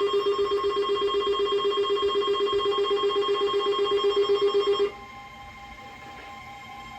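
Smartphone sounding its Wireless Emergency Alert attention tone for a tornado warning: a loud, rapidly pulsing electronic tone that cuts off abruptly about five seconds in. A fainter steady electronic tone carries on after it.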